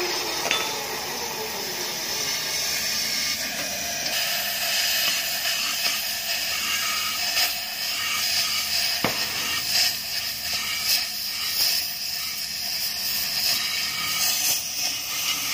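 Gas welding torch hissing steadily as its flame burns out the internal baffles of a stock Yamaha Lexi muffler, with a few light metallic clicks, one sharp click about nine seconds in.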